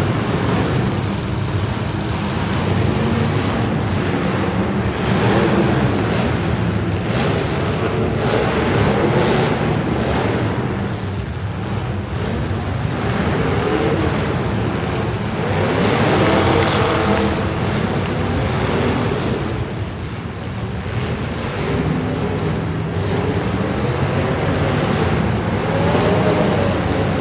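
Demolition derby cars' engines running and revving over a dense wash of noise, the revs rising and falling several times.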